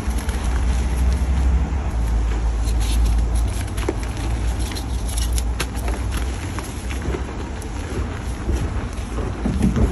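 Wind buffeting the microphone in a low, unsteady rumble, with scattered sharp crunches of gym chalk being crushed, a cluster of them about three and five seconds in.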